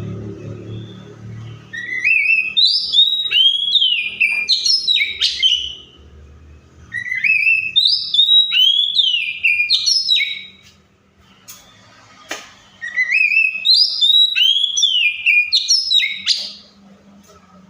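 Oriental magpie-robin singing: three phrases of quick whistled notes that sweep up and down, separated by short pauses, with a single sharp click between the second and third phrases.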